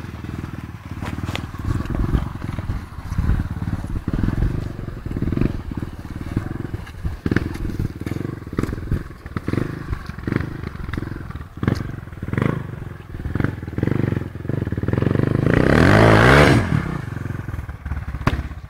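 Dirt bike engine revving, its pitch climbing and then dropping as it passes, loudest about three-quarters of the way through. Before that there is an uneven run of knocks and crackle.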